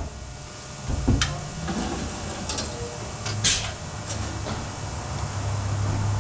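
Work noise in a quick-lube service bay: a few sharp clicks and knocks, the loudest about three and a half seconds in, over a steady low hum that grows a little louder in the second half.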